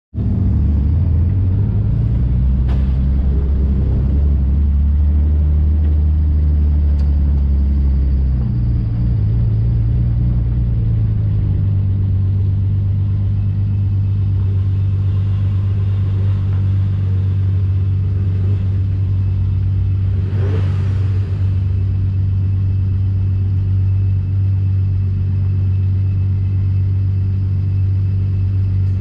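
A car's engine idling steadily, heard from on board the stationary car. The idle note shifts once about eight seconds in, and a brief whooshing swell comes about twenty seconds in.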